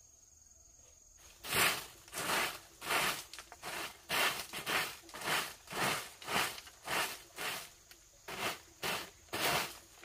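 A regular run of scratchy swishing strokes, about three every two seconds, starting about a second and a half in. Before them, a cricket's high steady trill.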